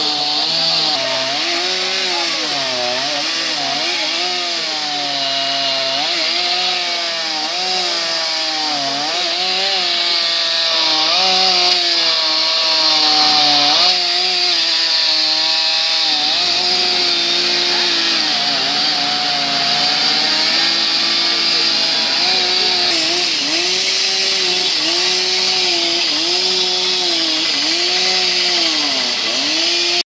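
Chainsaw cutting into a large tree, its engine pitch dipping and rising again and again as the chain comes under load in the wood and frees.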